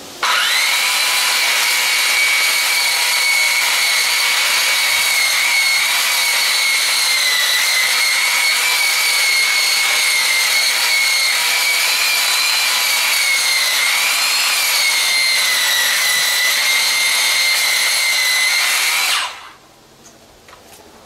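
Makita 9741 wheel sander switched on and running with a steady high whine while its abrasive wheel sands a weathered log, the pitch dipping and rising briefly about two-thirds through. It is switched off about a second before the end and winds down quickly.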